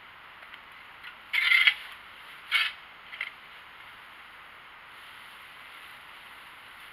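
Pitchfork tines driven into a pile of dry leaves: two short rustling crunches about a second apart, the first longer and louder, then a fainter one just after, over a steady background hiss.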